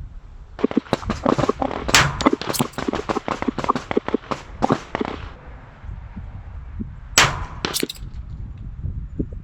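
A rapid, overlapping string of gunshots from several shooters for about five seconds. About two seconds later come two louder, sharper shots, roughly half a second apart, over a low wind rumble on the microphone.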